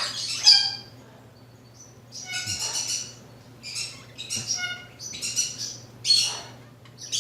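Severe macaw giving a string of short squawking calls, about six, each lasting under a second with short gaps between.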